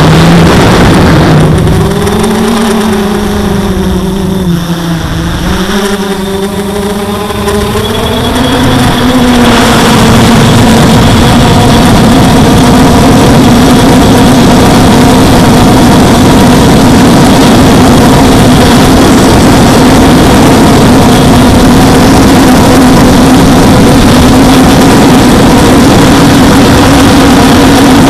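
Quadcopter's electric motors and propellers whining, picked up by the onboard camera with a loud rush of air. The pitch dips and rises over the first several seconds, then holds steady and high as the drone flies flat out.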